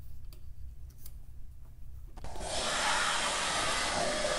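Television static: a loud, steady hiss of white noise that switches on suddenly about two seconds in.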